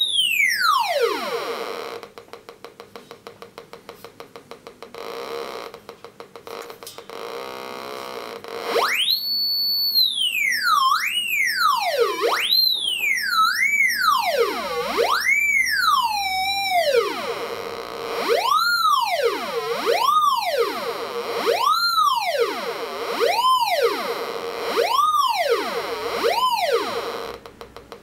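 Raptor X pulse induction metal detector's audio tone swooping up and down in pitch each time a metal object is passed by its search coil, the signal of a detected target. A faint rapid ticking fills the quiet stretch early on; about nine seconds in a high tone holds for a second, then the swoops repeat about every second and a half.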